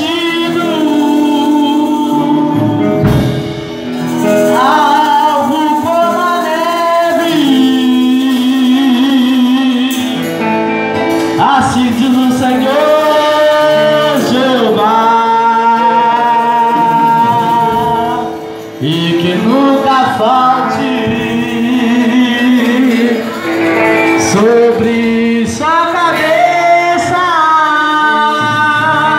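Man singing a Portuguese gospel chorus into a microphone over a church PA, with acoustic guitar accompaniment. Long held notes, some sung with a waver of vibrato.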